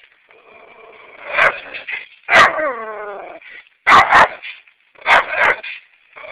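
Dogs barking repeatedly behind a fence, about six loud, sharp barks in all. One bark near the middle draws out into a falling, pitched yowl, and a quieter whine runs under the first second or so.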